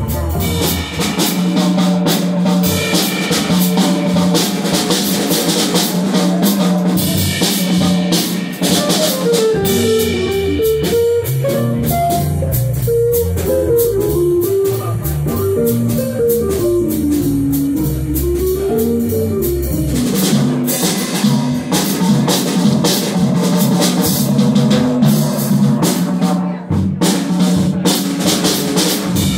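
Live small jazz band playing: a drum kit keeping time under piano, upright bass and guitar, with a single melodic line winding up and down through the middle stretch.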